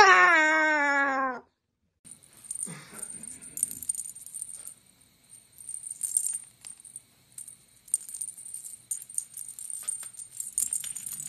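A salmon-crested cockatoo gives one long call that falls in pitch, over in about a second and a half. Then a black-headed caique's ball toy rattles and jingles on and off with irregular clicks as the bird plays with it.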